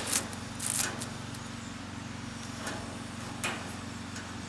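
Steady low hum of running outdoor HVAC equipment, with a few brief clicks or rustles near the start and about three and a half seconds in.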